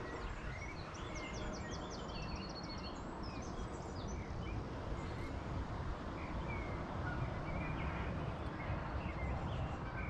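Small birds chirping and singing, with quick trills in the first few seconds, over a steady low rumble of wind on the microphone.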